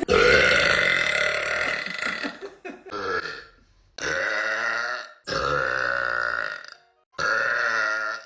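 A woman letting out a string of five loud burps: a long drawn-out one of about two and a half seconds, a short one, then three of about a second each.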